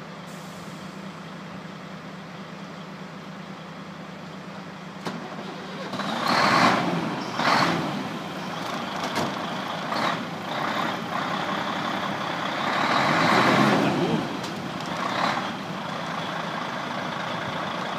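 Heavy truck engine running steadily, with a click about five seconds in; from about six seconds on, several louder bursts of hissing, rumbling noise rise and fall over it.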